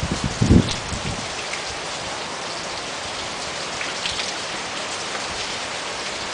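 Steady rain falling and pattering on surfaces, with a few brief low thumps in the first second.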